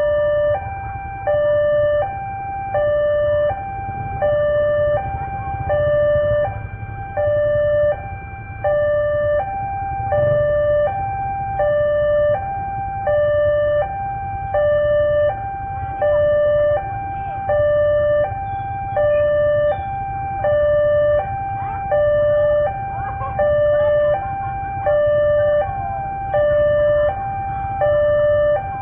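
Railway level crossing warning alarm sounding: an electronic two-tone signal swapping between a higher and a lower tone about every 0.7 seconds, the warning that a train is approaching. A low rumble of traffic lies underneath.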